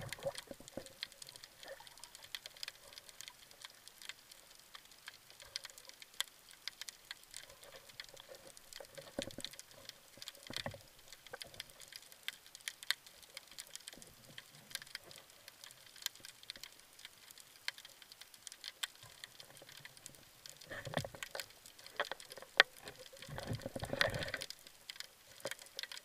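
Underwater sound heard through a camera housing: a steady scatter of fine clicks and crackles, with a few louder rushes of water near the end.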